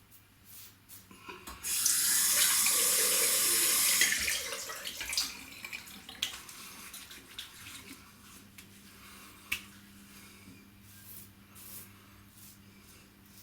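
A tap running into a sink for about two seconds, then water splashing and trickling in the basin with scattered small knocks, one sharper knock about halfway through.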